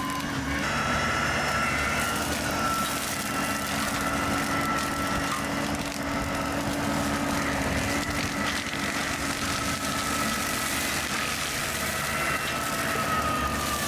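Mini excavator's diesel engine running under load while the hydraulic brush cutter head spins, a steady machine noise with a high whine whose pitch sags a little near the end.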